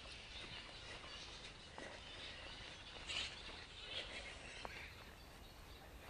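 Faint outdoor bush ambience: a steady wash of distant high animal calls and chirps, busiest around the middle.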